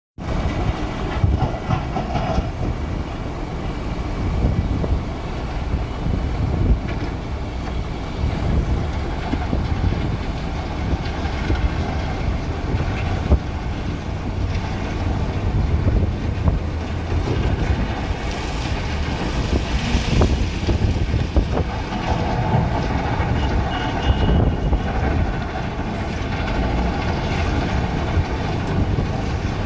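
A JCB 3DX backhoe loader's diesel engine running, a steady low rumble that rises and falls a little in loudness.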